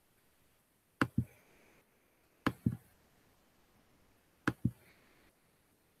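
Computer mouse clicking: three pairs of short sharp clicks, about a second and a half to two seconds apart, with near silence between them.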